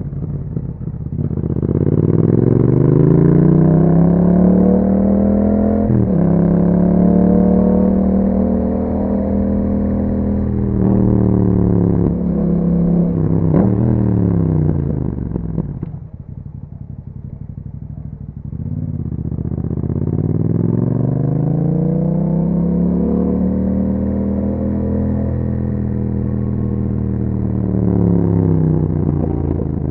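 Yamaha MT-07 parallel-twin breathing through an aftermarket Akrapovic exhaust, accelerating hard with short breaks at quick upshifts. It drops back and goes quieter at about the halfway point, then pulls away again and eases off near the end.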